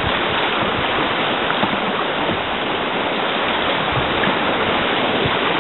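Fast river rapids rushing steadily around an open canoe, with the splash of paddle strokes.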